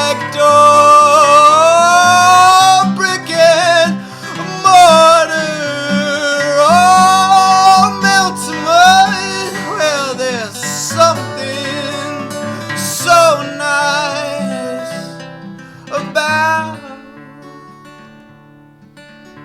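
Acoustic guitar song with a voice singing long, sliding notes over the strummed and plucked chords, dying away near the end.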